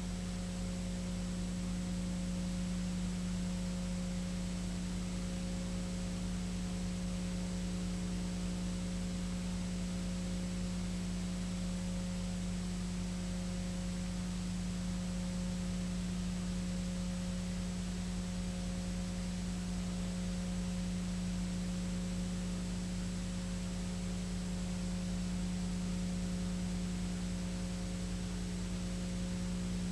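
Steady electrical hum and hiss with no other sound, unchanging throughout: the background noise of the recording or transfer chain after the programme audio has stopped.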